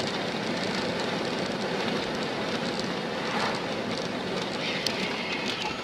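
Steady road and wind noise of a car travelling at highway speed, heard from the dashcam inside the cabin.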